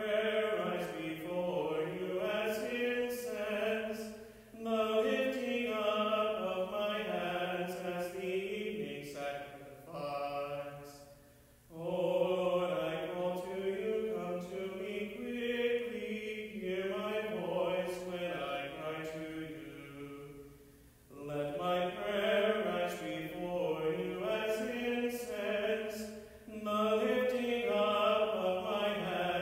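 A man's voice chanting the sung liturgy of Lutheran Vespers, holding and moving between sustained notes in long phrases with short pauses between them.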